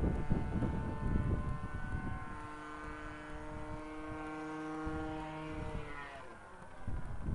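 OS .40 nitro engine of a radio-controlled airplane droning in flight, a steady buzzing tone that rises in pitch and fades away about six seconds in. Wind buffets the microphone at the start and again near the end.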